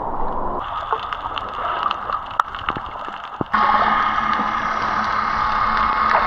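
Water sloshing and gurgling around a longtail boat, with scattered small knocks. About three and a half seconds in, the sound switches abruptly to a louder, steady hum.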